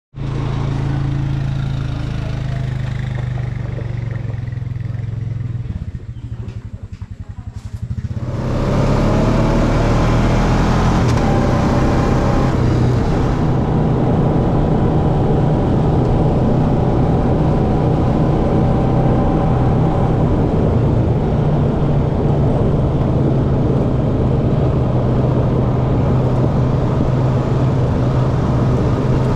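ATV engine running steadily, dropping to a quieter, pulsing run for a couple of seconds about six seconds in. From about eight seconds it is louder and steady, with a noisy rush, as the quad rides along a dirt track.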